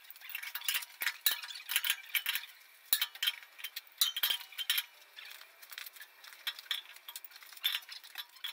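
Adjustable steel wrench clinking and clicking against a brass pressure relief valve as it is tightened into a refrigerant receiver's port: irregular light metallic clinks, thinning out for a couple of seconds past the middle.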